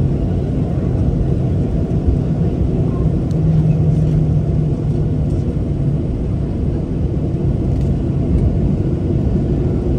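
Boeing 737-800's CFM56-7B turbofan engines at taxi power, heard inside the cabin as a steady low rumble with a steady hum that swells slightly a few seconds in.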